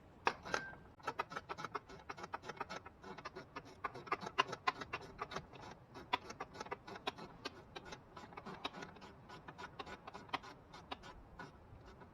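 Hand ratchet wrench clicking in quick, irregular runs of short sharp clicks as a vacuum pump mounting bolt is run down snug.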